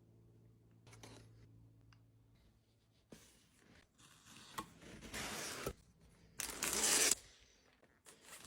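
Packaging being handled and torn open: bursts of rustling and tearing with a few sharp clicks, starting about three seconds in, the loudest tear a little before the end.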